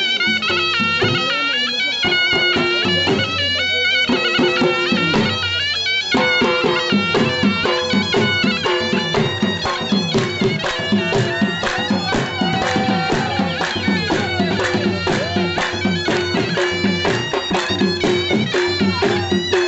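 Folk dance music for the chap: a shrill double-reed pipe, a surnai, plays a wavering melody over a steady drone, and a dhol drum comes in with a fast, steady beat about six seconds in.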